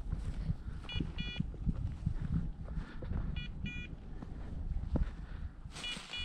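A hunting dog's beeper collar giving a high double beep about every two and a half seconds, three times, over footsteps crunching through snowy grass and wind on the microphone.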